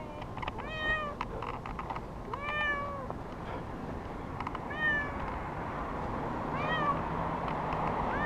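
Young cat meowing repeatedly, four drawn-out meows about two seconds apart, as it is being held and bagged for a tree rescue; the cat is frightened by the handling. A few light clicks and rustles come between the calls.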